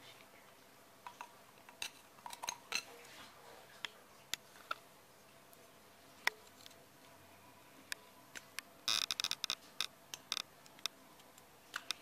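Scattered light clicks and taps as a small terracotta part, clear plastic tubing and a small metal tool are handled, with a quick run of sharper clinks about nine seconds in.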